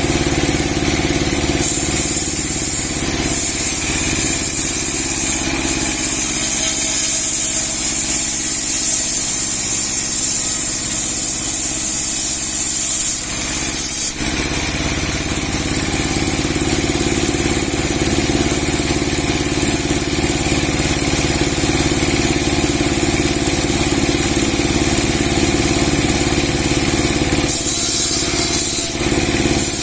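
Large 30 hp log-sawing machine with a 60 cm steel blade running steadily, a constant motor hum under a strong high hiss as the blade works through the wood. The hiss eases for a moment about halfway through and again near the end.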